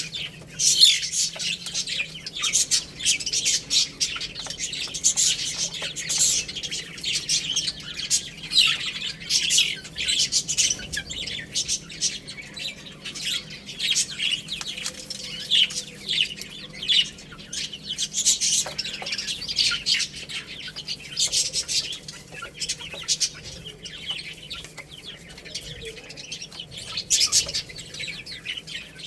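A group of baby chicks peeping continuously: many short, high chirps overlapping one another.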